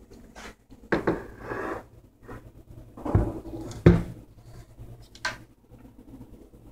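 Clicks and knocks of something hard being handled: a cluster about a second in, two heavier knocks around three to four seconds in, and a short click just past five seconds, over a low steady hum.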